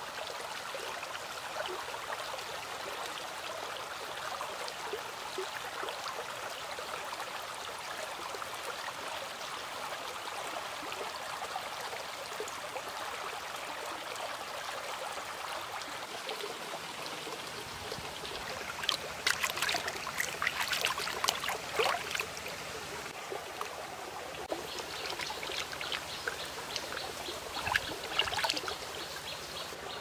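Shallow rocky stream babbling steadily. About two-thirds of the way in, irregular splashing begins as hands work in the water, washing raw chicken.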